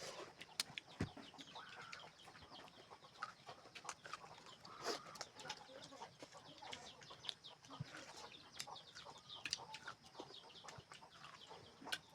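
Faint clucking of chickens among scattered small clicks and taps.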